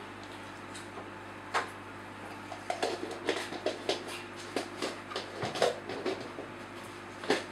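Irregular soft clicks and knocks, bunched in the middle and fading near the end, over a steady low hum.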